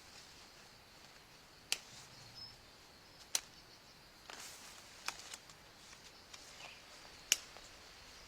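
Four sharp snaps about every two seconds, with a few fainter clicks and some light rustling between them.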